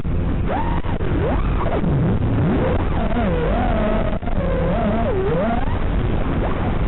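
FPV freestyle quadcopter's brushless motors whining, their pitch swooping up and down sharply and often with the throttle, over a steady rough rushing noise.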